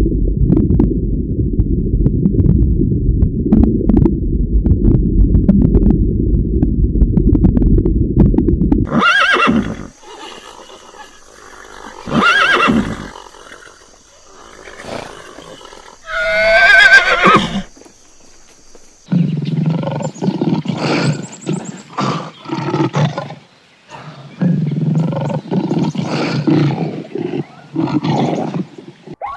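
A rhinoceros vocalizing: a low rumbling noise for about nine seconds that stops abruptly, then a string of high squealing calls, one of them wavering and falling in pitch, then a run of short, low, snort-like bursts.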